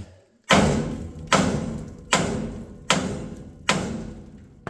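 Five evenly spaced hammer blows, about one every 0.8 s, on a steel leaf spring eye bolt. Each strike rings briefly in the metal. The bolt is probably stuck in the spring's bushing and is being driven out.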